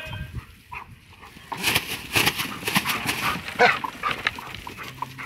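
Sheep being hustled along a wooden race by a plastic bag flapped on a pole, a couple of seconds of dense rustling and crackling, with one short animal call about three and a half seconds in.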